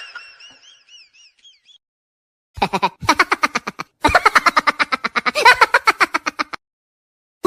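Cartoon comedy sound effects. A wobbly, fading whistle dies away in the first second and a half. After a short silence comes a rapid pulsing, pitched chatter of about eight pulses a second, in two runs with a brief break between them, stopping about a second before the end.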